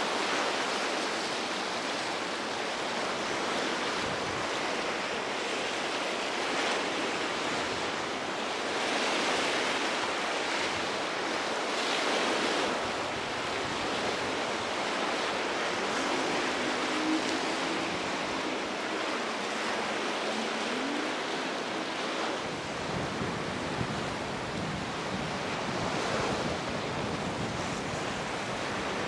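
Choppy sea waves breaking and churning, with wind gusting on the microphone.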